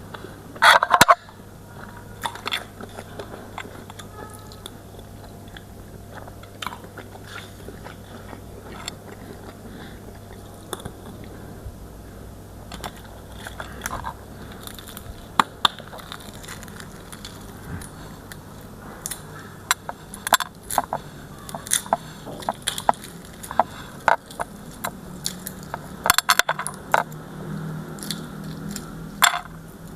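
Close-miked eating: a person chewing and biting food, with scattered sharp clicks, a loud burst about a second in and bunches of clicks in the last third.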